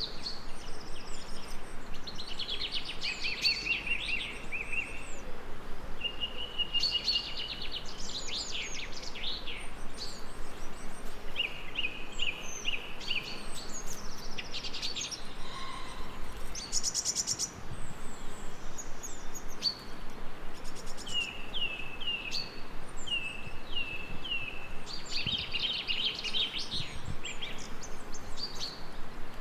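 Several songbirds singing and calling, with overlapping chirps, trills and short whistled phrases, over a steady background hiss.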